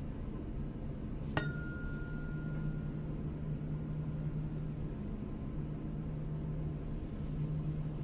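A tuning fork struck once about a second and a half in, ringing one clear high tone that fades away over a second or two. A steady low hum lies underneath.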